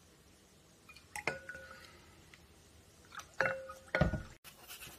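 A wooden spoon knocking against a glass mixing bowl while stirring liquid: three sharp clinks with a short ring, one about a second in and two more near the end.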